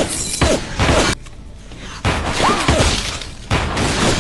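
Gunfire in a film shootout: dense, rapid shots in loud spells, with a short lull a little over a second in before the firing resumes.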